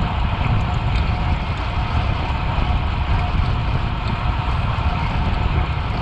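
Wind rushing over the microphone and road rumble from a bicycle ridden at speed: a steady, loud rush with a heavy, buffeting low rumble.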